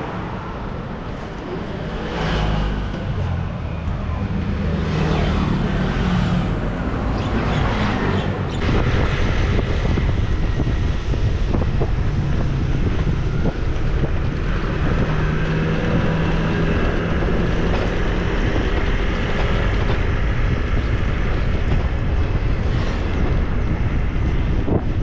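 Motor vehicle running on the road: engine hum and road noise, louder after about eight seconds.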